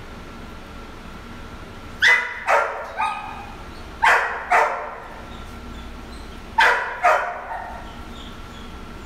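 A dog barking seven times in three bunches: three barks about two seconds in, two more about four seconds in, and two near seven seconds in. Each bark echoes briefly.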